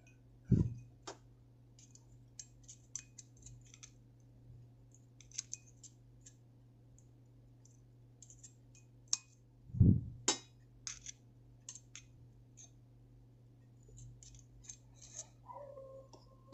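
Zippo Kantai flip-top lighter being handled: scattered small metallic clicks and taps, with louder clacks about half a second in and just before ten seconds.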